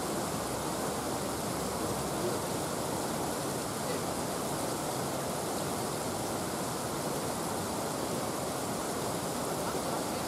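River water spilling over a weir: a steady, even rush.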